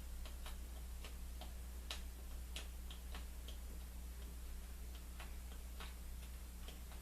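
Small scrapes and clicks at uneven intervals as a bar of Pears' Transparent Soap is scraped to take off shavings, over a steady low electrical hum.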